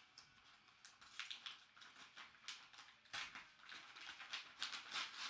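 A paper envelope being torn open and handled: a run of crisp paper crackles and rustles, loudest near the end.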